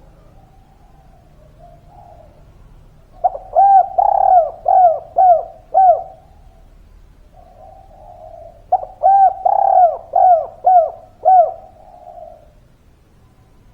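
Spotted dove (derkuku/tekukur) cooing: two loud phrases, each a quick run of about six arched coos, with a softer rolling murmur before and between them.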